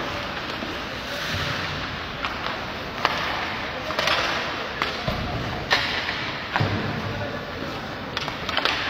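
Ice hockey sticks hitting pucks, and pucks cracking off the boards and goal, in an ice rink: sharp hits about a second apart over a steady hiss of skate blades on the ice.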